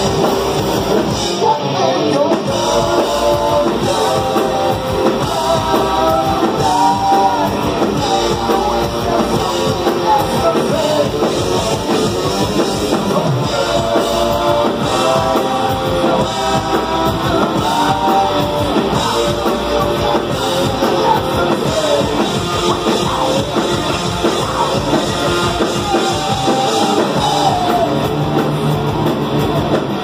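Rock band playing live: a man singing into a handheld microphone over electric guitar and drums.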